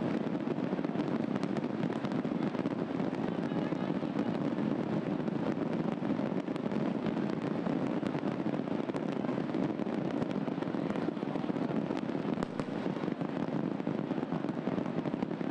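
A mass of fireworks and firecrackers going off all at once: a dense, unbroken crackle of many small sharp bangs over a steady rushing noise.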